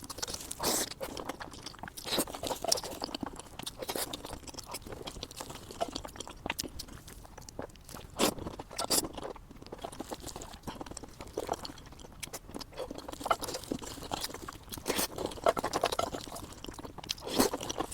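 A person eating chicken biryani: irregular chewing and crunching, with many sharp clicks throughout.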